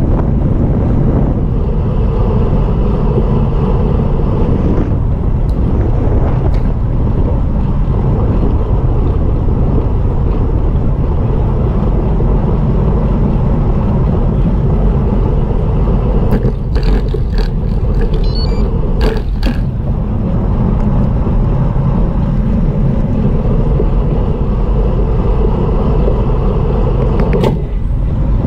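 Wind buffeting a bike-mounted action camera's microphone while riding in a race, mixed with a steady rumble from the tyres and road. A cluster of sharp clicks comes about two-thirds of the way through, and another single click near the end.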